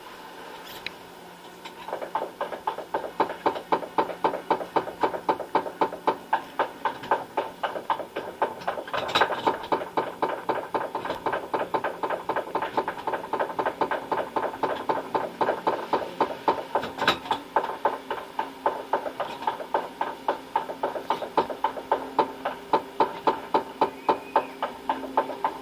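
Roller coaster car climbing the lift hill, its anti-rollback ratchet clacking in an even rhythm of about three clicks a second, starting about two seconds in, over a steady hum.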